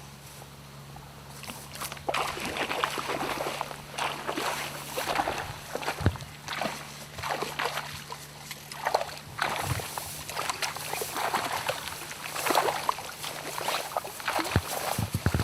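Water splashing and sloshing in irregular bursts, starting about two seconds in.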